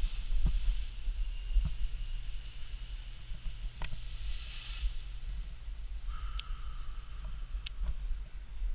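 Wind rumbling on the microphone, with a few sharp clicks and a faint, even high-pitched chirp repeating about three times a second.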